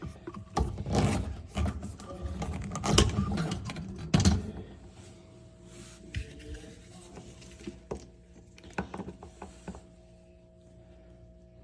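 Hands working on a dishwasher's motor and pump assembly: a busy run of knocks, scrapes and rattles for the first four and a half seconds, then a few scattered clicks and taps over a faint steady hum.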